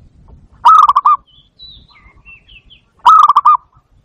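Barred dove (zebra dove, bato-bato) calling twice, each call a short, quick run of about five rolling coo notes, the two calls about two and a half seconds apart. Faint higher chirps sound between them.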